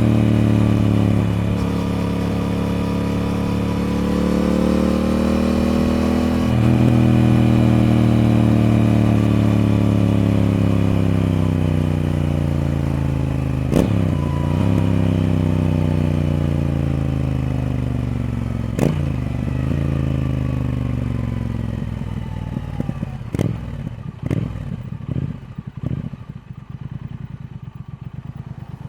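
Triumph Speed Twin's parallel-twin engine running under way. It gets louder about six seconds in, then winds down gradually as the bike slows, with two sharp clicks along the way. Near the end it drops to a quieter low putter with scattered clicks and rattles.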